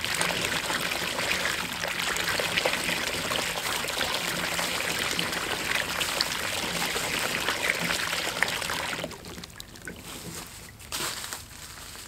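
Water from a hose-fed game bird washer bucket churning chicken eggs and spilling over the rim into a plastic trough below, a steady splashing pour that stops abruptly about nine seconds in as the water flow is shut off.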